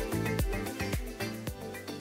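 Background music with a steady beat, getting quieter toward the end.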